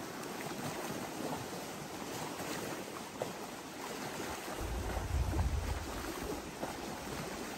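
Small waves lapping at a lake shore, a steady wash of water with faint splashes. A low rumble of wind on the microphone comes in about halfway through and fades a second or two later.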